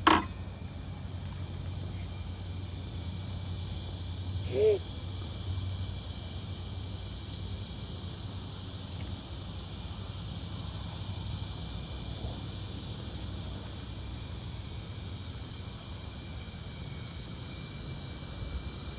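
Outdoor ambience: a steady high hiss of insects over a low rumble, with one short rising-and-falling voice sound about four and a half seconds in.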